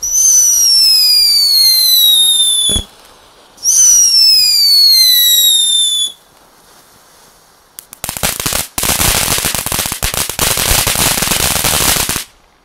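Funke Mini Cuckoo multi-effect firework fountain: two long whistles, each falling in pitch over two to three seconds, with a short pause between them. After a quieter stretch, about four seconds of dense crackling follow, cutting off shortly before the end.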